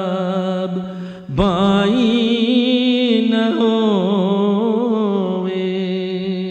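A man's solo voice chanting a marsiya, drawing out long wavering held notes with no clear words. There is a short break about a second in, then a single long drawn-out phrase.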